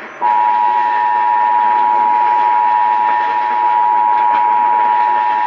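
Emergency Alert System two-tone attention signal: a loud, steady dual tone that starts about a quarter second in after a brief gap. It announces that an emergency alert message is about to be broadcast.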